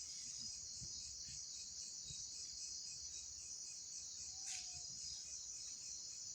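Night insects, crickets, trilling steadily in a high, fast-pulsing chorus, with a short low call about four and a half seconds in.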